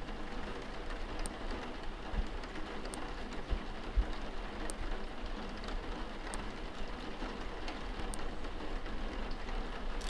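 Steady hiss like rain, with a few dull low thumps a couple of seconds in and faint clicks every second or two.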